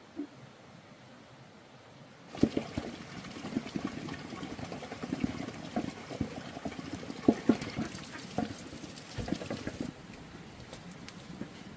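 Water running and splashing, with irregular knocks and clatter mixed in. It starts suddenly about two seconds in and stops abruptly near the end.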